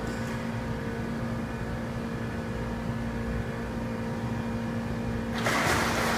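Steady machine hum with a constant low tone. About five seconds in, loud splashing breaks in as a swimmer kicks and turns at the pool wall.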